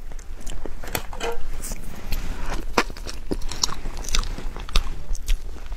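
Close-miked eating of a soft snow-skin mochi (xuemeiniang) dessert: wet chewing, biting and lip smacks, made up of many short clicks at an uneven pace.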